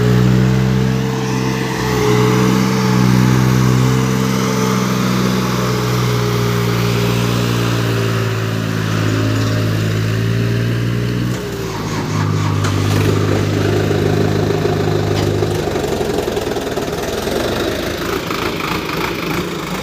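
Diesel tractor engine running at a steady speed, its pitch dropping slightly about twelve seconds in and turning to a rougher, noisier rumble near the end.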